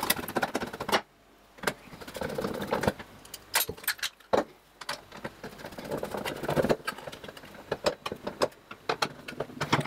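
Metal parts and a screwdriver clinking and knocking against the doser housing of a Faema MPN coffee grinder as it is reassembled, in irregular clicks and knocks.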